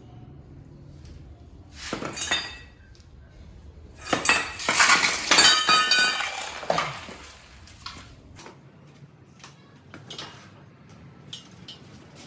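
Metal clanking and clinking as a motorbike exhaust header pipe and muffler are handled: a short clatter about two seconds in, a louder run of ringing metal knocks from about four to seven seconds in, then light scattered clicks.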